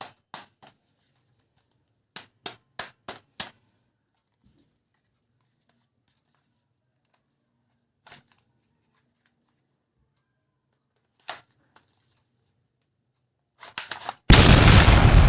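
Sharp clicks, some in quick runs of four or five, others single, then near the end a sudden loud burst of noise that starts fading away.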